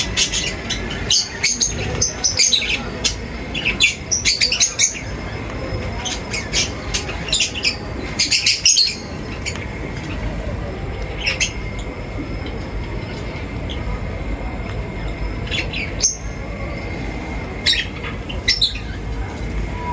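Birds chirping and squawking in short, sharp, high calls, dense and overlapping for about the first nine seconds and scattered after that, over a steady background hiss.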